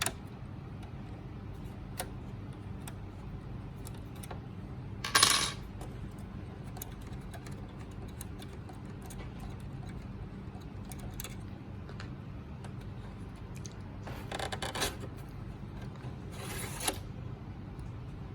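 Small metal parts clinking and rattling while a PS4 Pro's hard drive is taken out. There is a sharp clatter about five seconds in and two longer metallic rattles near the end, with scattered small clicks over a steady low hum.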